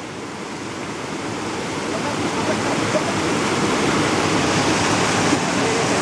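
Steady rush of a waterfall's water pouring and cascading over rocks, growing gradually louder over the first few seconds, then holding level.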